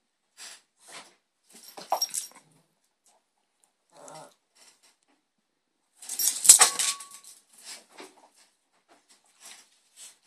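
Small terrier playing with a rope toy on a tile floor: a series of short, scattered scuffling sounds and dog noises. The loudest burst comes about six seconds in.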